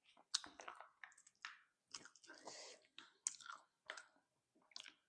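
Chewing and biting on spicy chicken feet (ceker mercon): irregular wet mouth smacks and sharp little clicks, faint.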